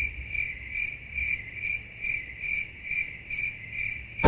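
Crickets chirping, a high chirp about twice a second that cuts in and out abruptly over an otherwise quiet background, like the stock 'crickets' sound effect.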